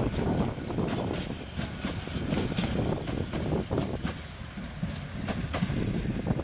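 Iranian-built passenger coaches of a train rolling past close by: a steady low rumble of wheels on rail, with repeated sharp clicks as the wheels cross rail joints.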